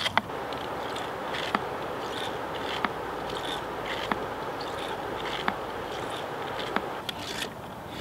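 Lifesaver Liberty filter bottle being hand-pumped, a sharp click at each stroke about every second and a quarter, over a steady rush of water as filtered river water jets into a plastic bottle.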